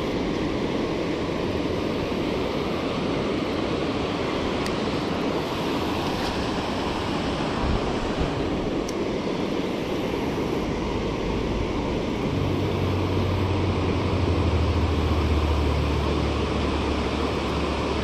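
Steady rushing of water pouring over a low-head dam spillway. About two-thirds of the way through, a low steady hum joins it and fades near the end.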